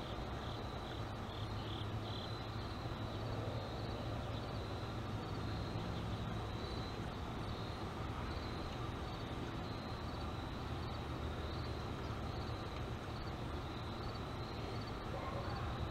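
Outdoor background of a steady low hum, with an insect chirping faintly and evenly at a high pitch, about once a second.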